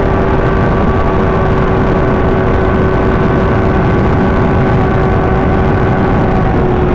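Kawasaki ZX-6R's inline-four engine running at a steady cruise while the bike is ridden, with an even engine note that drops slightly in pitch near the end.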